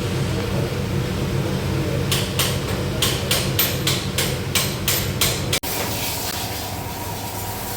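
About nine sharp hammer strikes, roughly three a second, over a steady low workshop hum. The sound cuts off abruptly about two-thirds of the way through, and a different steady hum follows.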